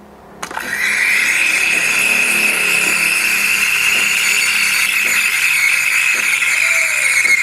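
Espresso machine steam wand, its rubber frothing sleeve removed, switched on with a click about half a second in, then hissing steadily and strongly into a pitcher of milk with a high screech over the hiss: milk being steamed and frothed.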